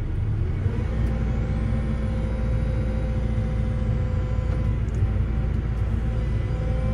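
Farm machinery's diesel engine running steadily under hydraulic load, heard from inside the cab, as a hydraulic grab lowers a ripped bag of wheat into a loader bucket. A steady whine comes in about a second in.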